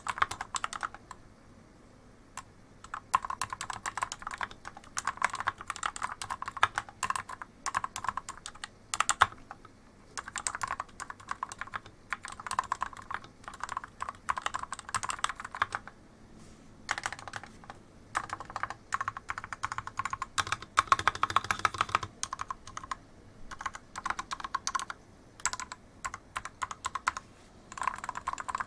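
Typing on an FL-Esports MK870 mechanical keyboard fitted with lubed Outemu Purple switches: fast runs of keystrokes broken by short pauses, the longest about halfway through.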